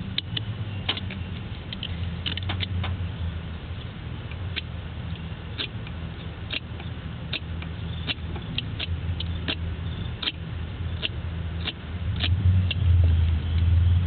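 Irregular sharp clicks and scrapes of a box cutter splitting the tape and sheath on a pair of wires, over a steady low hum.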